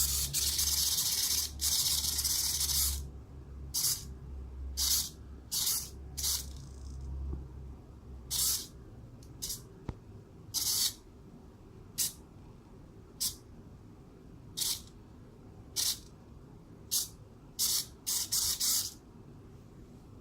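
Hexapod robot's SG90 micro servo motors whirring as they move: a long buzz lasting about three seconds, then a string of short bursts at irregular gaps, each a fraction of a second.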